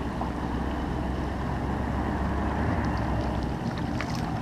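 A small largemouth bass being reeled in to the bank: a steady low rumble and hiss on the microphone, with a few faint clicks and light splashing near the end as the fish thrashes at the surface.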